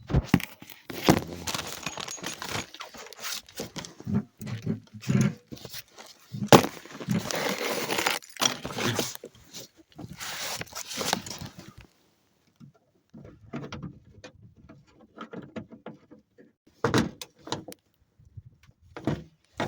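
Irregular clicking, knocking and scraping of hand tools and plastic trim being handled on a car's front bumper as screws are tightened and parts fitted back. The sounds are busiest in the first half, then thin out to scattered clicks with a couple of louder clatters near the end.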